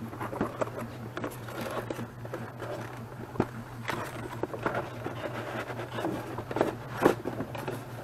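Cardboard box being opened and handled: irregular scraping and rustling of the flap and lid, with sharp knocks about three and a half and seven seconds in.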